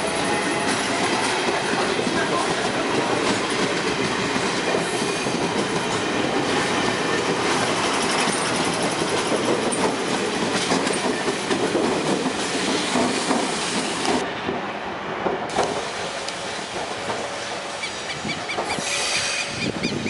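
CPTM Série 1100 Budd/Mafersa electric multiple unit rolling past as it pulls out of the station: a steady rumble of wheels and cars with repeated clicks over the rail joints, easing off a little in the last several seconds as the train moves away.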